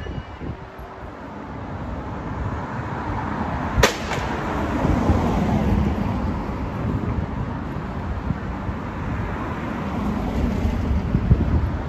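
Street traffic: a vehicle passing, its rumble swelling and fading, with one sharp click about four seconds in.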